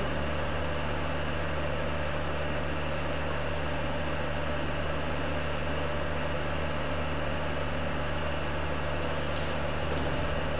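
Steady droning hiss with a low hum underneath, unchanging throughout. A faint, brief hiss comes near the end.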